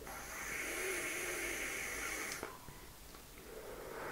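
A person exhaling a large cloud of e-cigarette vapour: a long airy breath for about two and a half seconds, then a fainter breath near the end.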